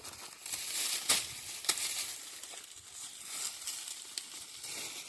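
Maize stalks being cut by hand for fodder: the leaves rustle and crackle, with two sharp chopping snaps a little over a second in, about half a second apart.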